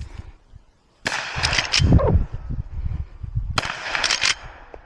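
Henry Big Boy X lever-action rifle firing .38 Special rounds. The shots come in two clusters, one about a second in and another near the end, each shot ringing out with echo.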